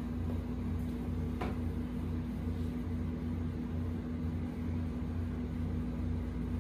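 A steady low mechanical hum with a constant tone, with one faint light tap about one and a half seconds in.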